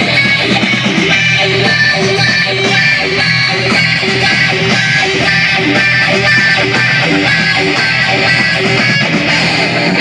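A guitar band's song playing loud, with strummed guitars and a repeating riff.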